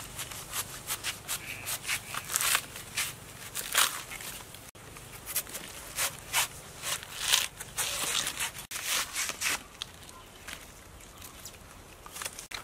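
Banana stalk being cut with a knife and its outer sheaths peeled away, giving an irregular run of clicks and snaps that thins out near the end.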